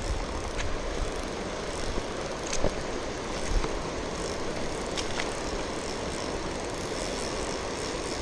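Steady rushing noise of river water and wind, with the faint whir and a few clicks of a Shimano Sahara spinning reel being cranked against a fighting fish. The angler says the reel's bearings are seizing.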